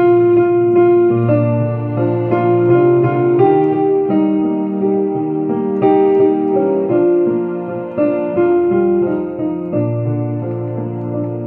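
Digital piano playing a worship song with no singing: held chords over a low bass note, the chords changing about every second.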